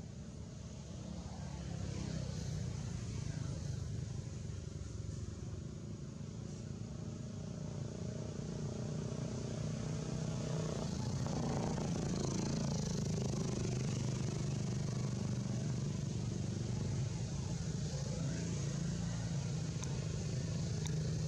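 A steady low engine hum, like a motor vehicle running, that grows louder from about two seconds in and again around the middle, with faint voices in the background.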